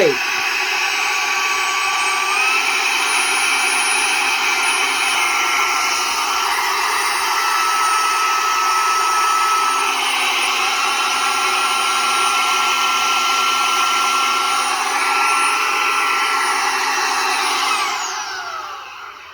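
SilverHolder 3-in-1 cordless handheld vacuum's small high-speed motor running with a steady high whine while it sucks the air out of an inflatable floaty. The whine steps up in pitch a couple of seconds in as it goes to the higher speed, then falls away as the motor is switched off and spins down near the end.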